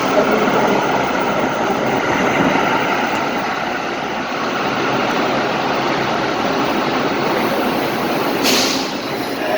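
Light-rail train running, with a steady rumble and rail noise heard from inside the car, and a brief hiss about eight and a half seconds in.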